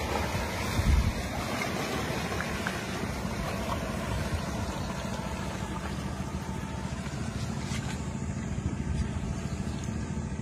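Small waves washing in among shoreline rocks, with a steady low wind rumble on the microphone.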